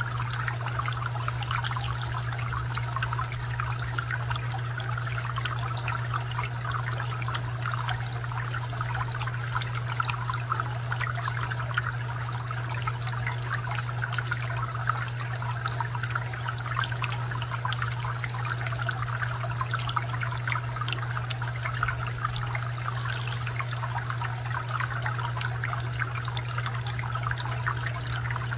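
Garden fountain water trickling and splashing steadily, with a steady low hum underneath.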